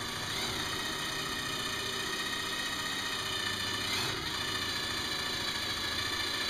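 A steady mechanical drone with a thin high whine over it, running evenly throughout.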